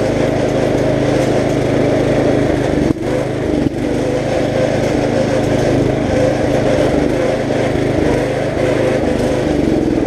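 Riding lawn mower engine running steadily under way, with two brief dips in loudness about three seconds in.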